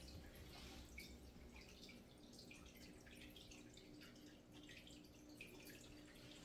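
Near silence: faint room tone with a low hum and many soft, irregular ticks.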